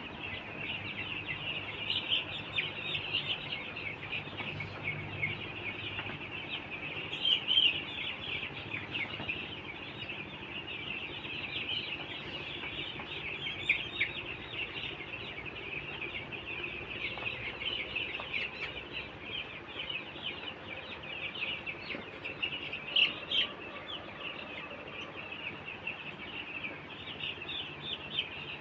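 A flock of week-old poultry chicks peeping without a break in a dense, high-pitched chorus, with a few louder peeps standing out now and then.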